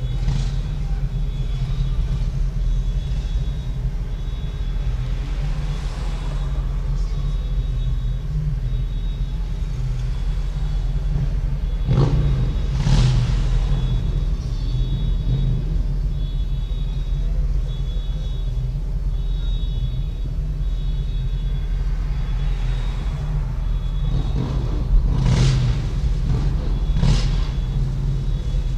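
Steady low rumble of a car idling in traffic, heard inside the car, with the louder swell of another vehicle going by about twelve seconds in and two more near the end.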